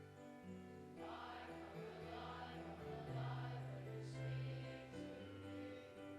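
A hymn sung by a group of voices with instrumental accompaniment; held chords play alone at first, and the singing comes in about a second in.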